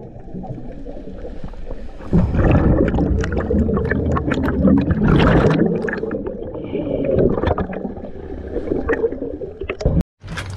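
Muffled underwater sound of a scuba diver's exhaled bubbles gurgling, coming in surges of bubbling and clicking. It drops out briefly near the end.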